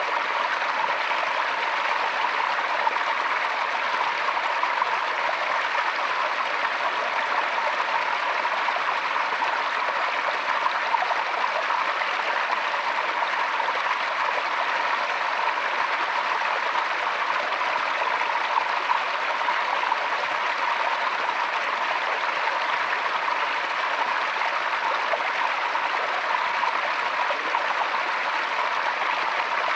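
Forest stream flowing steadily, water rushing and splashing over rocks in an even hiss.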